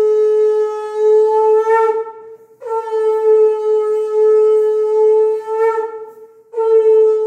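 Conch shell (shankha) blown in long steady blasts on one note. The first blast breaks off about two seconds in, the second is held for about three seconds, and a third starts near the end. Each wavers slightly as it breaks off.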